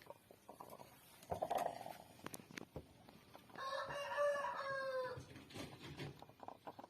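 A rooster crows once, a call of about a second and a half near the middle. Shorter clucking calls come before and after it.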